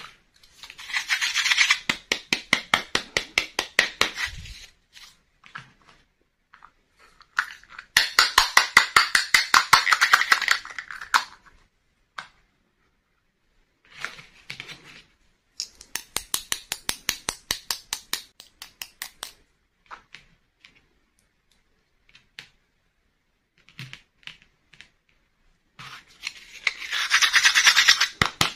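Fingers and palms rubbing and scratching small hard-plastic toy pieces in quick, evenly spaced strokes. The strokes come in four bursts of about three to four seconds each, with a few small clicks of the pieces being set down in between.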